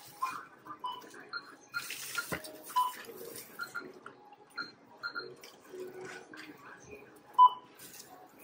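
Self-checkout activity: rustling as produce and bags are handled, with short electronic beeps scattered through and one much louder beep near the end.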